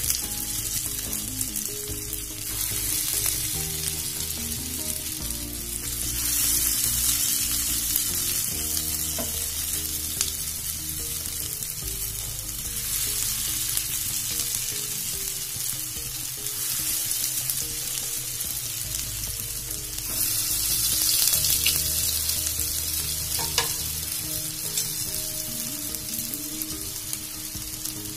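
Soya seekh kababs shallow-frying in hot oil in a flat pan: a steady sizzle that swells a few times as more kababs go into the oil.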